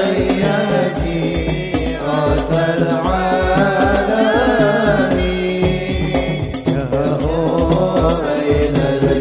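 Men chanting an Arabic sholawat over a steady beat of hadroh frame drums.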